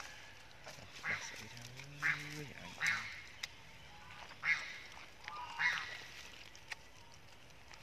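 Macaques giving short, sharp screams during a fight, five calls roughly a second apart.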